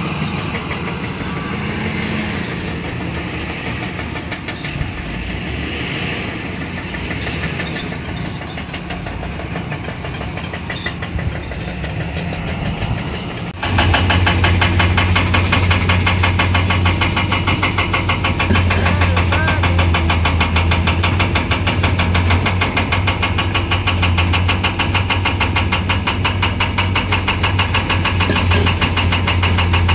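Heavy mining machine's diesel engine running. About halfway through, the sound cuts abruptly to a louder, steady, deep engine drone.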